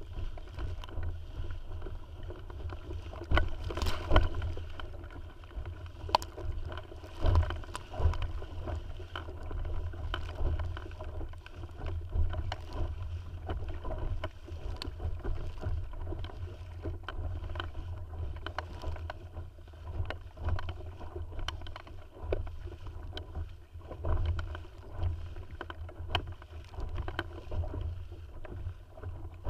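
Water slapping and splashing irregularly against the hull of a small inflatable sailing dinghy under way, with a steady low wind rumble on the microphone.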